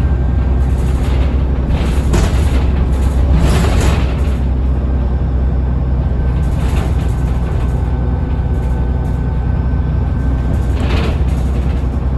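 Transbus Trident bus's Cummins ISBe diesel engine running under way, heard on board as a steady low drone with a thin steady whine, the turbo whine, that fades about ten seconds in. A few short bursts of hiss come over it.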